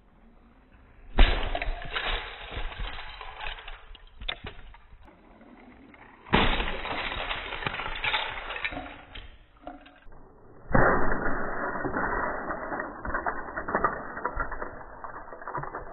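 Spring-loaded LEGO truck crashing and bursting apart: a sudden crash about a second in, then plastic bricks and small pieces clattering and skittering over the floor. The crash and scatter are heard three times, the last time slowed down.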